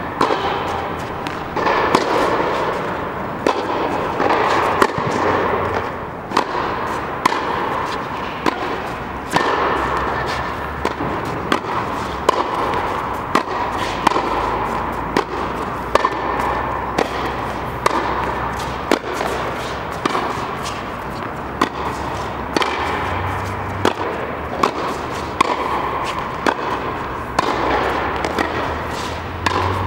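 Tennis ball being hit back and forth in a rally: sharp racket strikes and ball bounces come about once a second over a steady background noise.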